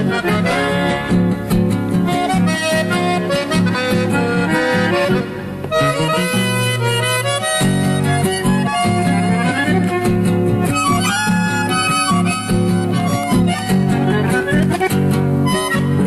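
Instrumental music led by an accordion melody over acoustic guitars, with no singing.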